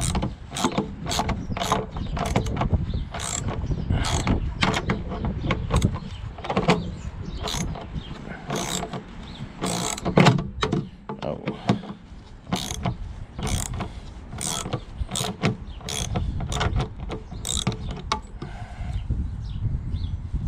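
3/8-inch drive socket ratchet clicking in a long series of sharp clicks as it works stubborn, oil-soaked tail-light mounting bolts loose. The clicks thin out near the end.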